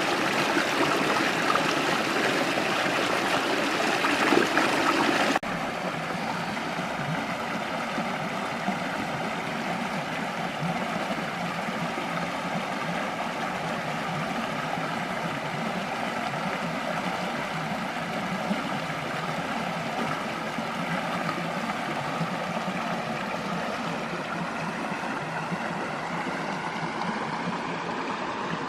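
Creek water flowing steadily. It is louder for the first five seconds, then drops abruptly to a quieter, even flow.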